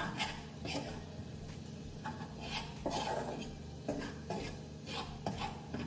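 Metal kitchen utensils and cookware clinking and scraping in quick, irregular knocks, over a faint steady low hum.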